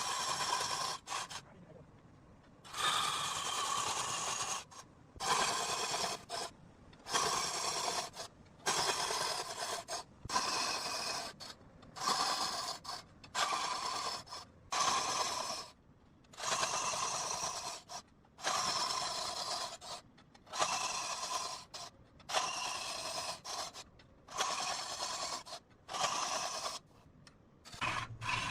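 Tool scraping across rosewood in a long run of strokes, each about a second long with short pauses between.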